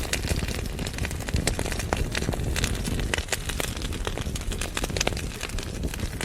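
Wood fire burning in a fireplace: a steady low rush of flame with frequent sharp crackles and pops from the burning logs.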